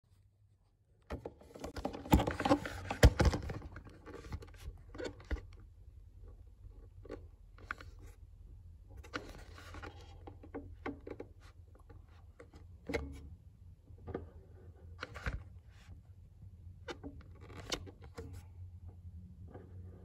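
Scrapes, rubs and clicks of hands and a phone moving against a GE refrigerator's freezer compartment and door, loudest and busiest about two to three seconds in. Underneath is a steady low hum from the running refrigerator.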